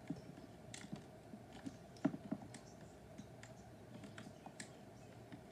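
Faint, irregular clicks of typing on a keyboard, a dozen or so scattered keystrokes.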